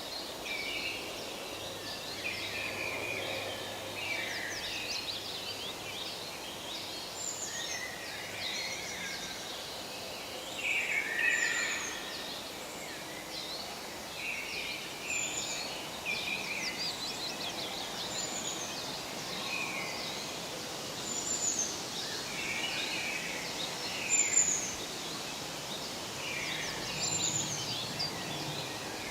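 Forest birdsong: several birds chirping and trilling over one another, with one high, thin, falling call repeating about every three seconds, over a soft steady hiss of forest ambience.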